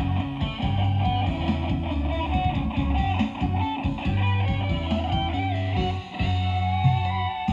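Guitar-led music with a heavy, steady bass line, played loud through a large sound system, with a brief dip about six seconds in.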